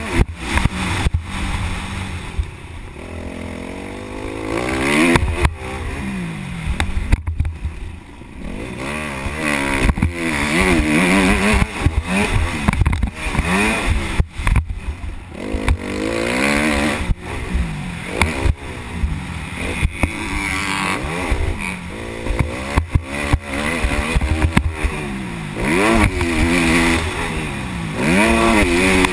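Motocross dirt bike engine revving up and down over and over as it is ridden around a dirt track, its pitch climbing and dropping with each stretch of throttle, with wind rumble on the microphone and knocks from the bumps.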